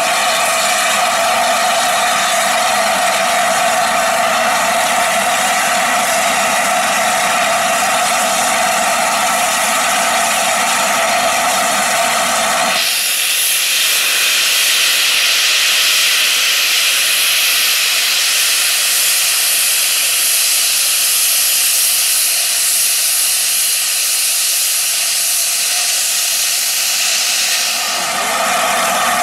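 LNER A4 steam locomotive standing with steam up, hissing steadily with a faint tone in it. About 13 seconds in, the sound switches abruptly to a sharper, higher hiss as steam blows out low at the front of the engine. Near the end the first, steadier hiss comes back.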